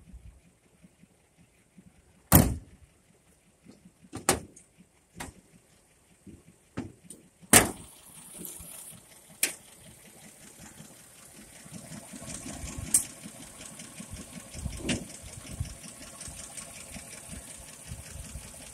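Heavy metal clunks and knocks from the body of a 1941 Buick Special, its door and hood being worked, the loudest about two and seven and a half seconds in. From about twelve seconds in, the car's Fireball straight-eight overhead-valve engine is heard running steadily at idle with the hood up.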